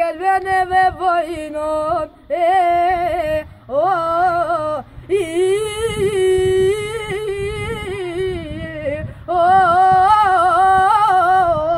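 A boy singing unaccompanied, in long held phrases with wavering ornaments on the notes and short breaks for breath between them; the longest phrase, in the middle, lasts about four seconds.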